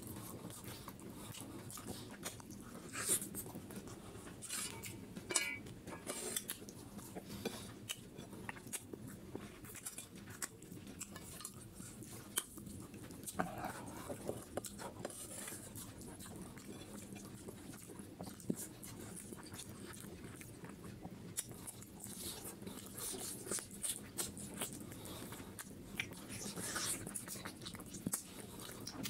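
Close-miked eating sounds: wet chewing, sucking and lip smacking on spicy duck feet curry and rice eaten by hand, with many short sharp clicks scattered throughout.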